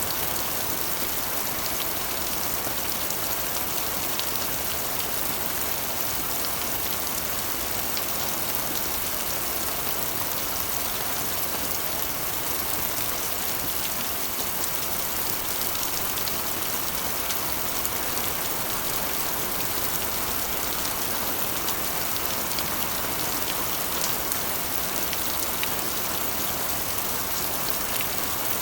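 Steady rain falling on a corrugated iron roof: an even hiss with individual drops ticking here and there.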